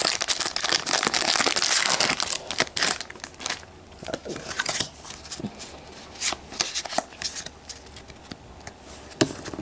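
A trading-card booster pack's foil wrapper crinkling and tearing open for about the first three seconds, then softer rustles and clicks of the cards being slid through the hands.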